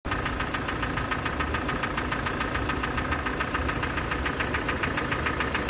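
Kia Optima's 2.0-litre G4ND four-cylinder petrol engine idling with a rapid, regular knock, the engine knock that is the fault under repair.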